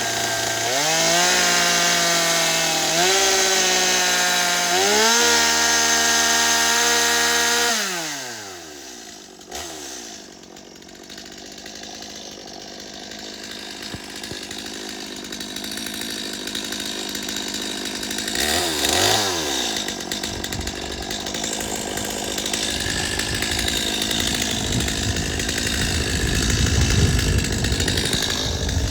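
Two-stroke chainsaw engine running, its pitch stepping up a few times with the throttle, then winding down as it is shut off about eight seconds in. Later comes a brief falling-then-rising whine.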